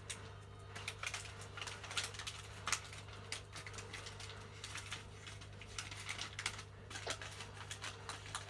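Steady low hum of an aquarium's hang-on-back filter running, under many irregular light clicks and taps, a couple of them louder.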